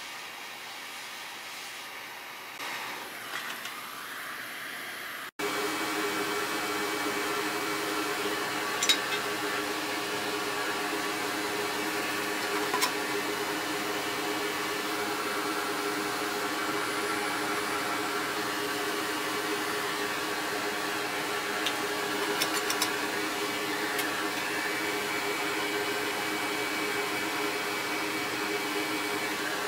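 Steady whirr of an electric blower at a soldering bench while a blown MOSFET is desoldered from a graphics card's power stage, with a few faint clicks of tools on the board. It comes in abruptly about five seconds in, after a low hiss.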